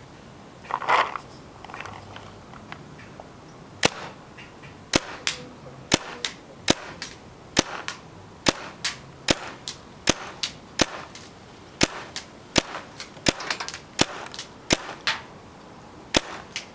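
Paintball gun firing a long string of single shots, sharp pops about one to two a second, starting about four seconds in, after a short noisy burst about a second in.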